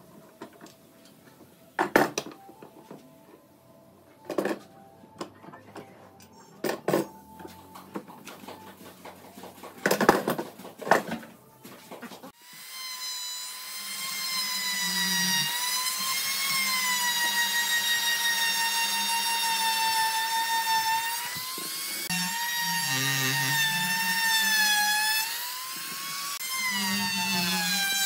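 A few sharp knocks and clicks, then about twelve seconds in a compact trim router starts and runs with a high whine. Its pitch wavers and dips twice as it is pushed along the edge of the wooden table frame.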